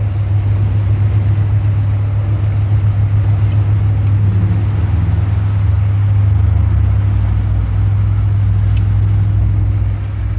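An engine running steadily under way: a loud, even, low drone that holds without revving or stopping.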